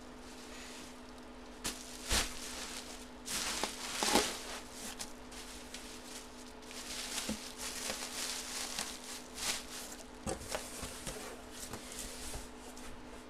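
Bubble wrap and a cardboard box being handled as a wrapped full-size football helmet is packed back into its box: irregular crinkling and scraping with a few sharp knocks, the loudest about two and four seconds in, over a faint steady hum.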